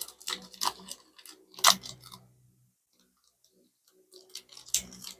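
Irregular crinkling and clicking of trading cards and their plastic pack wrapper being handled, with the loudest crackle about two seconds in and a brief lull before more small clicks near the end.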